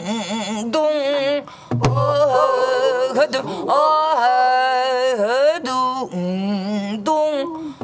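A woman singing a Korean Namdo folk song (namdo minyo) in long, wavering, sliding held notes, accompanied by a buk barrel drum struck with a stick: one low drum stroke about two seconds in, plus a few lighter stick taps.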